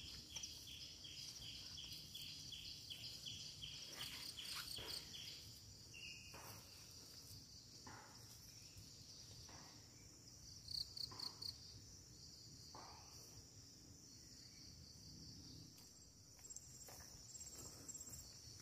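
Faint insects chirping: a steady high drone with a regular pulsing chirp for the first few seconds, and a quick run of about five chirps around eleven seconds in.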